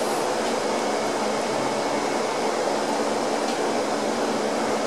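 Air compressor running steadily as it pumps up its 80-gallon tank. An electric motor drives an old reciprocating pump through a link (chain) belt, giving an even mechanical running sound with a low steady hum.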